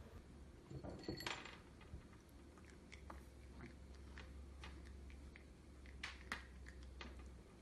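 Cat chewing dry kibble: faint, irregular crunches, with a brief cluster of louder noises about a second in.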